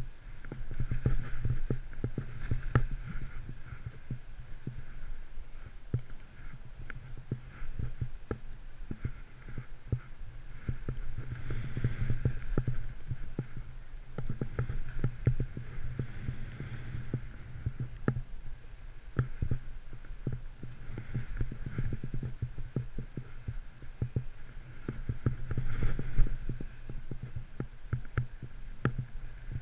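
Muffled, steady low rumble with frequent irregular thumps and knocks, heard through a body-mounted action camera as a rider descends through deep powder snow. The noise swells and fades with each turn.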